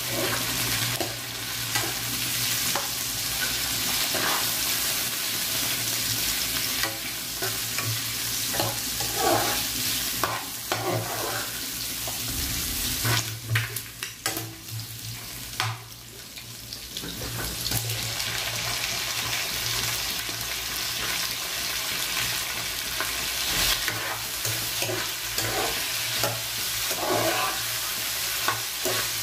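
Boiled chicken gizzards with sliced onion and garlic sizzling in an aluminium frying pan while a metal spoon stirs and scrapes them around the pan, over a steady low hum. The sizzling briefly drops quieter about halfway through, then picks up again.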